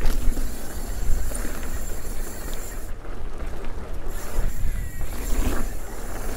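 Wind rushing over the microphone and knobby tyres rolling over packed dirt as a steel hardtail mountain bike rides a jump line at speed, with a short lull in the higher hiss about three seconds in.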